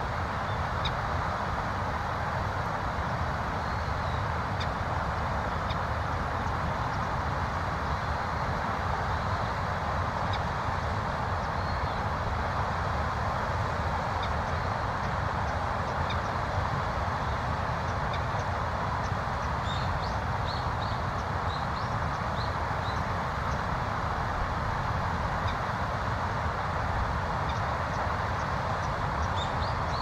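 Steady rushing of a river, even and unbroken, with faint short high bird chirps scattered through it, in a quick run about two-thirds of the way in and again near the end.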